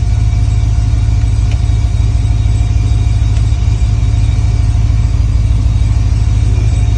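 GM LS V8 under FiTech Ultimate LS fuel injection, idling steadily with a deep, even rumble.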